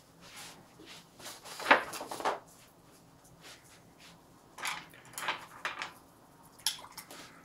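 Watercolour brush being worked in a few short scraping, rustling strokes, the loudest about two seconds in, more around five seconds in and once near the end.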